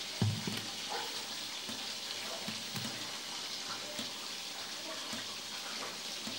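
Whole catfish deep-frying in hot oil in a wok, a steady sizzle, with a few soft knocks scattered through it.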